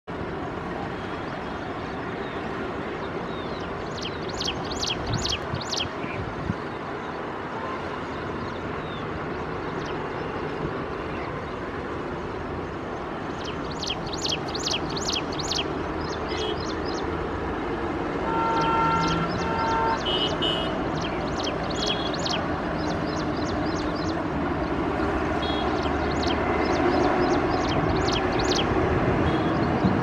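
Ashy prinia calling in short bursts of rapid, high, repeated notes, a burst every few seconds. A steady background rumble runs underneath.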